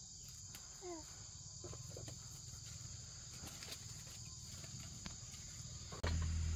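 Night insects, crickets, chirring in a steady high drone, with faint scattered taps. About six seconds in, a louder low steady hum starts abruptly.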